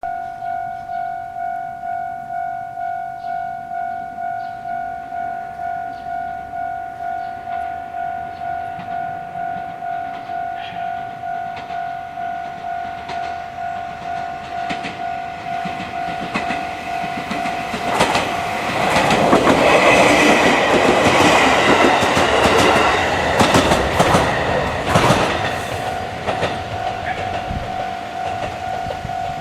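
A Japanese level-crossing warning bell rings steadily in even, repeating strokes. About two-thirds of the way in, a JR Central 313-series electric train passes over the crossing. Its wheels clack over the rail joints and its running noise swells and then fades, while the bell keeps ringing.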